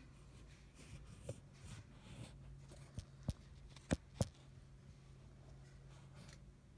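Faint room tone with a steady low hum, broken by a few sharp clicks or taps about three to four seconds in.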